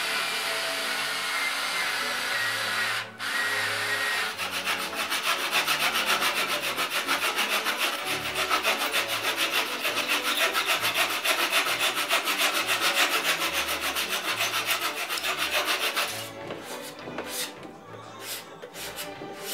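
A cordless mini screwdriver whirring as it drives a screw into wood for about three seconds, then a fine-toothed hand saw cutting back and forth rapidly, about three strokes a second, trimming protruding wood slips flush with a pine corner post. Near the end the sawing stops and a few quieter scattered taps and scrapes follow.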